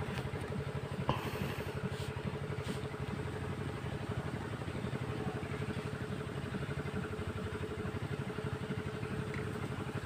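A small engine running steadily: an even, fast-pulsing low drone with a faint steady hum.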